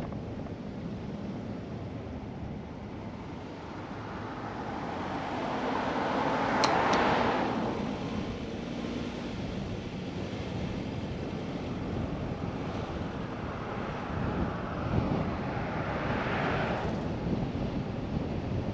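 A car driving slowly, with steady tyre and wind noise. The noise swells louder about seven seconds in, with two sharp ticks at its height, and swells again near the end.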